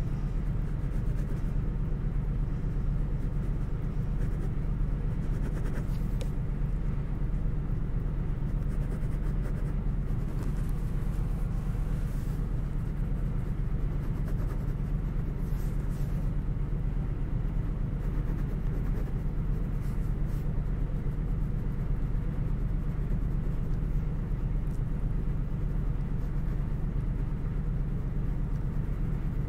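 Steady low hum with faint scratching of a ballpoint pen shading and outlining on chipboard.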